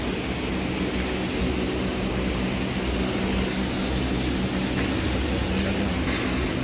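A motor running steadily with a low, even hum, and a few light clicks.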